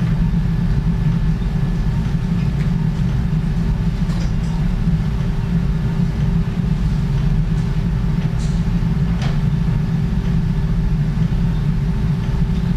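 Steady low hum of operating-room equipment, with a few faint clicks along the way.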